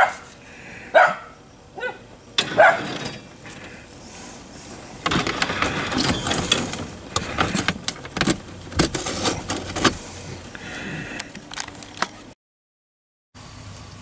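A dog barks twice, then several seconds of rustling and clattering with scattered clicks.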